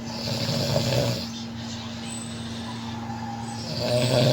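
A sleeping man snoring: two long, rough snores about three and a half seconds apart, over a steady low hum.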